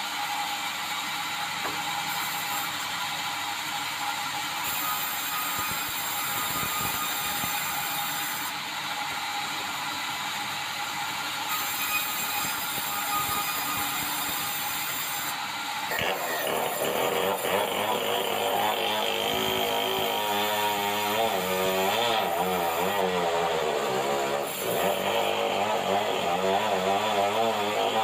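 A sawmill's saw running and cutting through a red meranti log. About halfway through the sound gets louder and its pitch wavers as the blade works through the wood.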